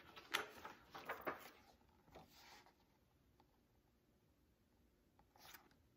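Soft rustling and light taps of a picture book's pages being turned and the book handled, several in the first two seconds or so, then near silence, with one more brief rustle near the end.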